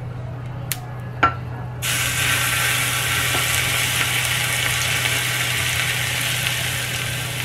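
Hot oil poured over raw shallots, garlic, chilli and sugar in a bowl, sizzling suddenly from about two seconds in and slowly easing off. Two light knocks come just before, and a steady low hum runs underneath.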